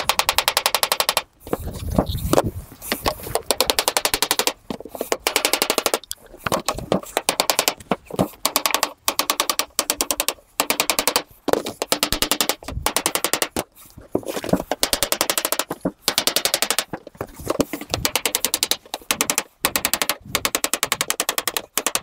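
Plastic-faced seaming hammer rapidly tapping a double standing seam of painted sheet metal closed around a curved radius, with a backing tool held behind it. The blows come in quick runs of about a second, many a second, with short pauses between runs.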